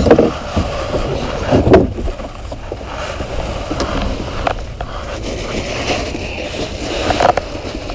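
Steady wind and water noise around a small open skiff, with a few knocks and thumps of a cooler and gear being handled in the boat, the loudest about two seconds in.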